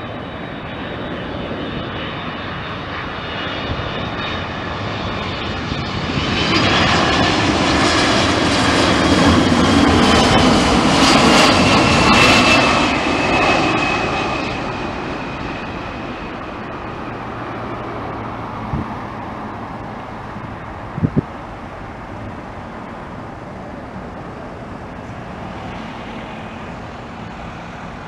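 Twin-engine jet airliner on final approach with its gear down, its engines growing louder as it passes low overhead and then fading away, with a high whine that falls in pitch as it goes by. Two short clicks during the fade.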